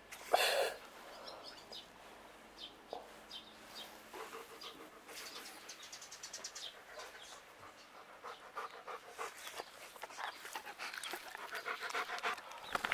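A dog panting close by, with a short loud sound about half a second in.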